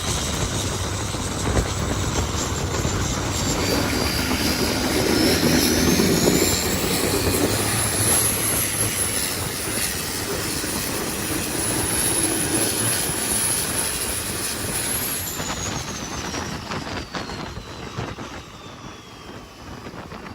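Turbocharged Isuzu diesel engine of a longtail racing boat at full throttle, with a high turbo whistle. The whistle rises in pitch as the engine pulls, holds high, then falls away and the engine fades over the last few seconds as the throttle comes off.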